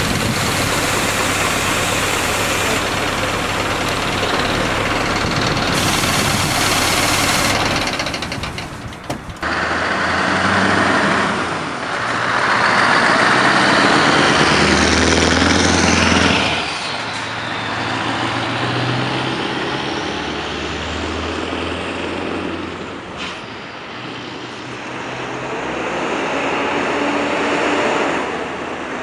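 Scania R620 truck's V8 diesel engine running. The truck drives past, loudest about halfway through, then fades as it pulls away.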